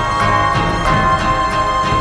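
Theme music with a steady beat of about four strokes a second under a long held high note.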